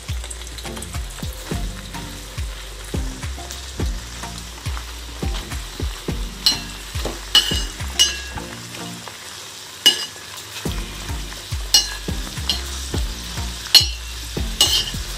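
Fresh leaves sizzling in hot oil in a stainless steel pot while a steel spoon stirs them, clinking and scraping against the pot's sides at an irregular pace. From about six seconds in, several of the clinks ring out more sharply.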